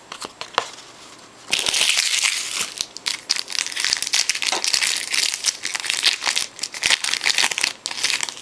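Foil wrapper of a 2012 Topps Platinum football card pack being torn open and crinkled by hand: a dense crackling crinkle that starts about a second and a half in and keeps on to near the end.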